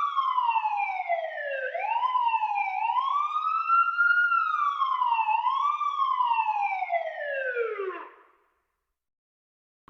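A siren-like wail, its pitch rising and falling unevenly, then gliding down and cutting off about eight seconds in. After a short silence, a brief rising chirp starts right at the end.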